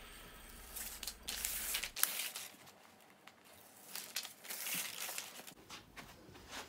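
Diamond-painting canvas and its paper release strips being handled and peeled back, giving short bursts of paper crinkling and rustling about a second in and again a few seconds later.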